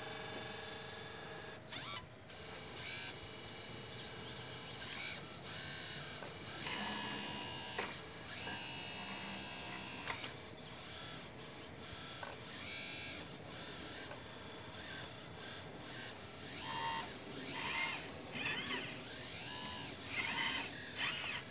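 Electric hydraulic pump of a Kabolite scale RC excavator whining at a steady high pitch. The pitch and loudness shift again and again as the boom and bucket are worked, with several brief dips and rises in pitch near the end.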